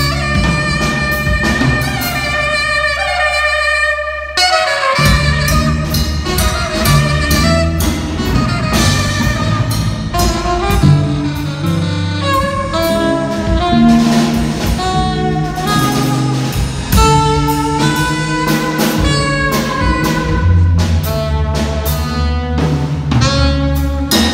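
Live jazz: a saxophone plays the melody over a drum kit and a low bass line in a small band.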